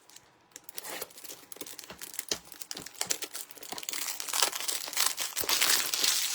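Plastic packaging crinkling and rustling as it is handled, with many small clicks and crackles, busiest in the second half.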